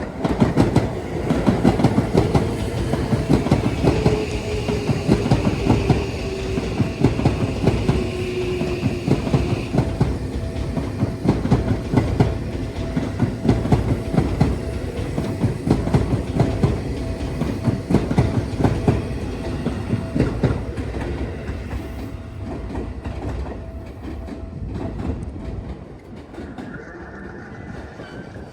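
Seibu Line electric train passing close by, its wheels clattering over the rail joints in a long run of rapid clicks that ease off after about twenty seconds as the train clears. A falling whine is heard in the first third, and a steady ringing tone that is likely the level-crossing bell runs underneath.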